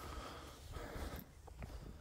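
Footsteps walking on a woodland path, with soft low thuds and two brief hissing stretches, one at the start and one around a second in.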